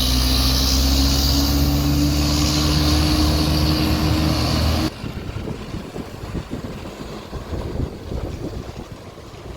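Irizar Century charter coach's diesel engine running loudly, its pitch slowly rising as it speeds up. About five seconds in the sound cuts off abruptly, leaving a quieter, uneven rumble.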